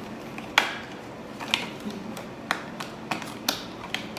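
Skincare products being pushed into a mini fridge's compartment, clicking and knocking against its shelves as they are squeezed in to fit: one sharp knock about half a second in, then several lighter clicks.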